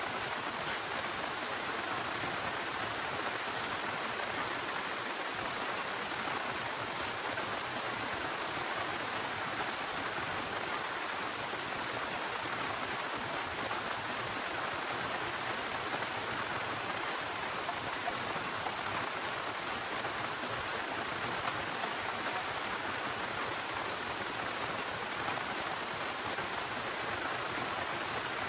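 Heavy rain pouring steadily with an even hiss, without pause.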